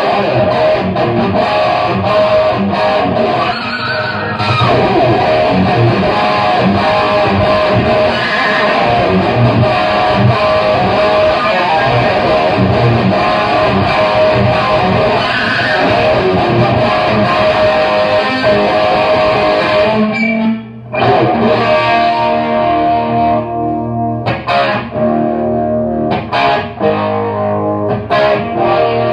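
Gibson Les Paul Classic electric guitar played through a Laney AOR 50 Series 2 valve amp, driven by a Digitech Bad Monkey overdrive with an MXR Black Label chorus, giving an overdriven rock tone. Busy riffing, a brief break about twenty seconds in, then ringing chords with short pauses between them.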